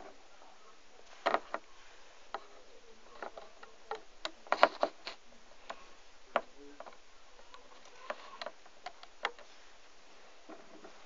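Irregular small clicks and taps of a hook against the pegs of a loom as rubber loom bands are stretched and placed, with a quick cluster of clicks about four to five seconds in.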